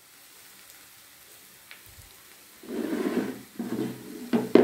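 Chopped onions and just-added garlic paste sizzling faintly in hot oil in a steel kadhai. From a little past halfway a metal spatula stirs and scrapes through them in two bursts, and there is a sharp knock of the spatula on the pan near the end.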